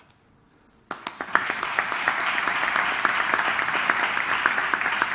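Audience applauding, starting suddenly about a second in and then holding steady as dense clapping from many hands.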